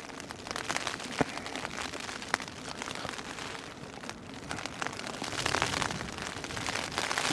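Rain falling on a tarp overhead, a dense spray of drops that gets heavier in the last couple of seconds, with a couple of sharper clicks about one and two seconds in.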